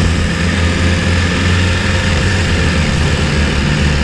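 BMW S1000RR's inline-four engine running at steady revs, its note holding one pitch, under an even rush of wind on the onboard microphone.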